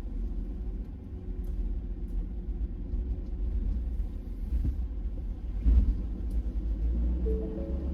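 Steady low rumble of a vehicle driving on the road, with one louder bump about three quarters of the way through.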